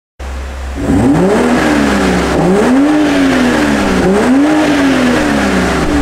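BMW M340i's B58 turbocharged 3.0-litre inline-six on the stock exhaust, free-revved so the engine note rises and falls in about three smooth swells.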